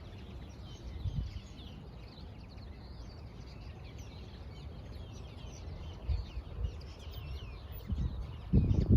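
Small birds chirping and twittering continuously over a steady low rumble of outdoor background noise, with a louder sound starting near the end.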